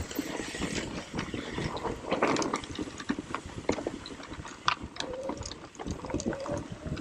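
Mountain bike rolling down a dirt trail, its tyres crunching over loose dirt, with scattered clicks and rattles from the bike.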